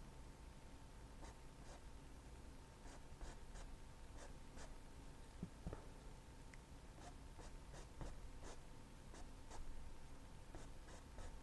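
Faint, irregular short strokes and taps of a paintbrush working oil paint on a stretched canvas, with a faint steady hum beneath.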